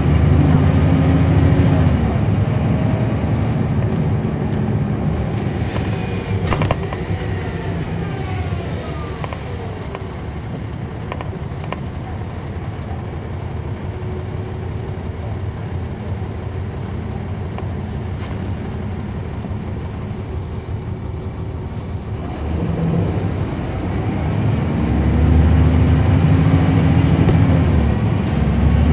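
Caterpillar C13 diesel engine and ZF automatic transmission of a NABI 40-foot transit bus, heard from the rear seats. The engine winds down with a falling whine as the bus slows, runs quieter for around twelve seconds, then revs up again as the bus pulls away, with an upshift near the end.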